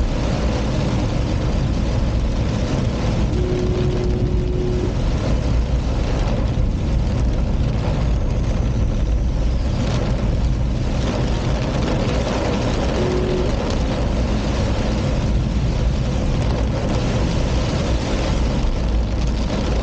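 Car driving on a wet road in heavy rain: steady engine and road noise with a low rumble. A short steady tone sounds twice, about three seconds in and again near the middle.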